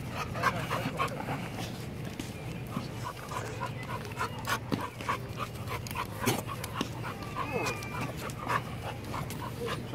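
Pit bull panting close to the microphone in quick, irregular breaths, with a brief high whine about two-thirds of the way through.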